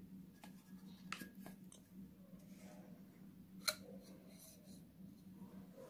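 A few faint snips and clicks of scissors cutting the thin metal of an empty aerosol can, one sharper snip about three and a half seconds in, over a faint steady hum.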